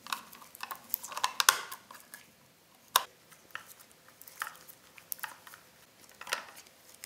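Precision screwdriver turning small screws into a Toniebox's plastic housing: scattered light clicks and scrapes, with a sharper click about three seconds in and another near the end.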